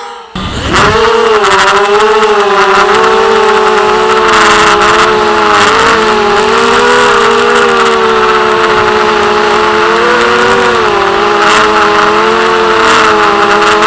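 Brushless motors and propellers of a ZMR racing quadcopter whining, heard from the onboard camera. The motors spin up about half a second in, then hold a steady whine whose pitch wavers up and down with the throttle.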